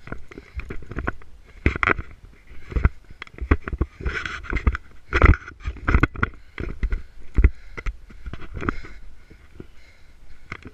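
Running footsteps thudding irregularly on a dirt path, with dry brush and grass scraping and rustling against the runner and a body-worn camera.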